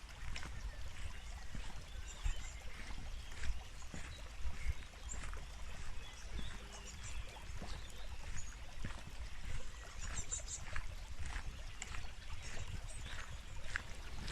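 Outdoor ambience on a walking track: a low rumble of wind on the microphone, with scattered short taps and brief high chirps.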